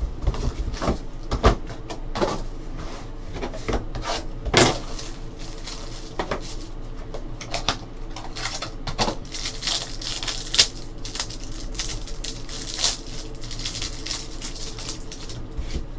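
Trading-card box and foil packs being unwrapped and torn open by hand: irregular crinkling and rustling of plastic and foil, with scattered sharp clicks, a few of them louder.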